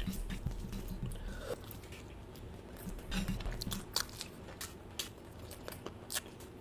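A person chewing and biting food, with irregular crunches and mouth clicks.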